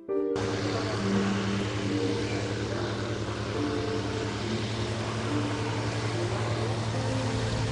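A single-engine light plane's piston engine and propeller running steadily as the plane rolls toward the microphone, cutting in abruptly and carrying a steady rush of noise. Faint background music continues under it.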